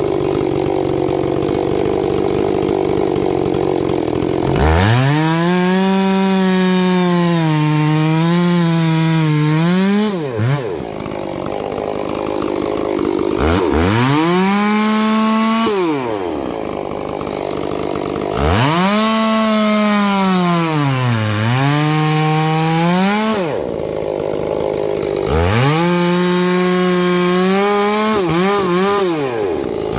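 A 70cc-class two-stroke chainsaw cuts through wood at full throttle in four runs. The engine note climbs high, sags as the chain loads up in the cut, and drops away between cuts.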